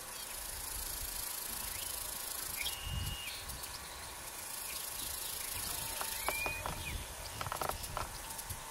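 Outdoor ambience with a steady high insect buzz. Two short whistled notes sound about three seconds apart, and a few light clicks come near the end.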